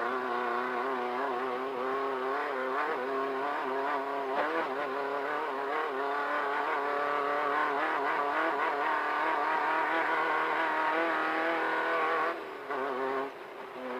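Class 1500 desert off-road race car's engine running hard and steady at high revs, its pitch wavering slightly, then falling off abruptly near the end as the throttle comes off.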